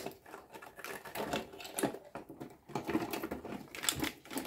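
Sharp snip of a plastic cable tie being cut right at the start, followed by irregular small clicks, taps and rustles of circuit boards, wiring and the plastic case being handled.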